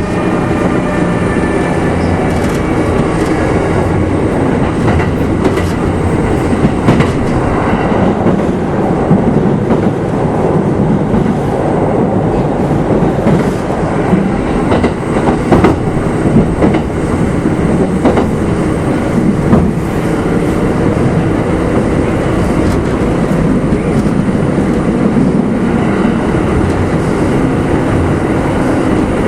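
Running sound of a Kintetsu 2610 series train heard aboard its motor car: a steady rumble of wheels and running gear with scattered clicks over rail joints. A whine falls away over the first few seconds.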